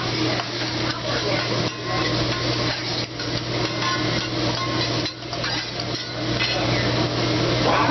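Metal spatula clicking, knocking and scraping against a steel hibachi griddle while shrimp and scallops cook on it, with frying underneath and a steady low hum.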